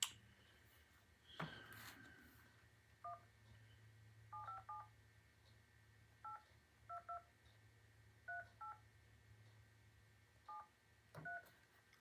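Touch-tone phone keypad being dialed: about eleven short two-tone DTMF beeps in irregular groups, as a phone number is entered. There is a click about a second and a half in and another near the end.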